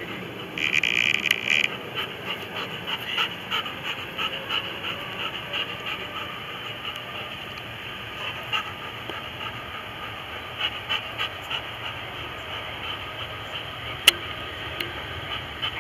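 Boeing 787 jet engines running up to takeoff thrust as the airliner rolls down the runway, a steady rushing roar with irregular fluttering gusts. There is a loud burst of noise about half a second in lasting about a second, and a single sharp click near the end.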